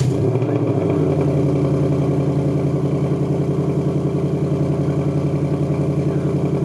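2021 Ford Mustang GT's 5.0-litre V8, heard at the quad exhaust tips just after start-up, its revs easing down in the first second into a steady fast idle with an even, pulsing exhaust note.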